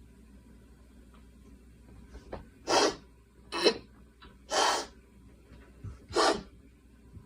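A girl coughing: four separate coughs over about three and a half seconds, with short catches of breath between them.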